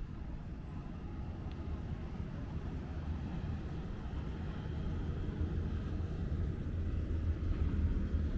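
Steady low city rumble of distant traffic on a quiet street, growing a little louder toward the end.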